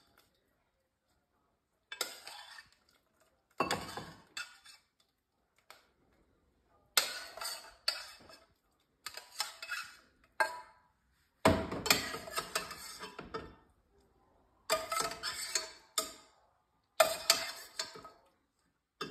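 Metal spoon scraping and clinking against the inside of a stainless-steel saucepan as cooked pasta is scooped out. It comes in repeated bouts of a second or two with short silences between.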